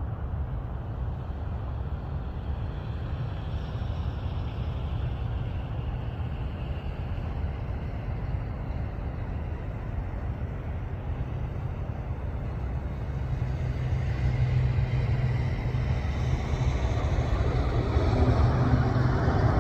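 AC-130 gunship's four turboprop engines at takeoff power: a steady low rumble and propeller drone. It grows louder over the last third as the aircraft lifts off and climbs toward the listener.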